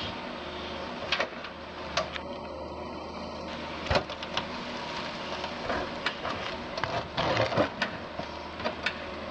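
Doosan DX180 LC excavator's engine running steadily, broken by sharp cracks and knocks from the machine's work, the loudest about four seconds in and a quick cluster near the end.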